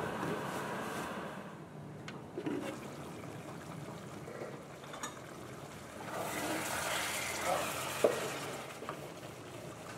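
Chicken in tomato sauce simmering in a stainless steel wok with a bubbling hiss. From about six seconds in, a spatula stirs through the pieces and scrapes the pan, with a sharp knock near eight seconds.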